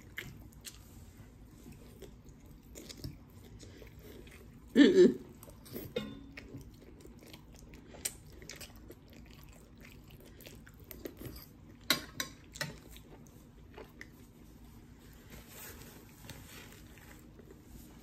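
Close-miked eating: biting and chewing with scattered mouth clicks and crunches, and one louder brief sound about five seconds in. A soft paper-napkin rustle near the end.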